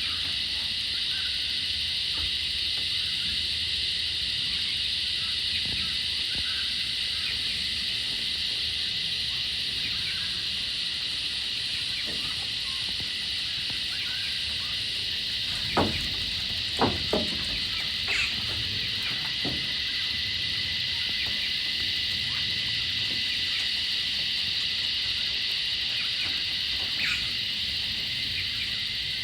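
Australian bush cicadas droning in a steady, high-pitched, unbroken chorus. A few short thumps about halfway through.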